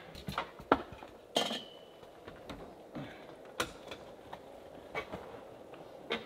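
Stainless steel chimney pipe knocking and clanking as it is handled and fitted into place: irregular sharp metallic knocks, one of them ringing briefly about a second and a half in.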